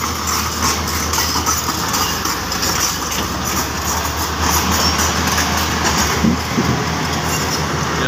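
Komatsu crawler bulldozer's diesel engine running under load as it climbs a steep slope of loose dirt, with the clatter of its steel tracks.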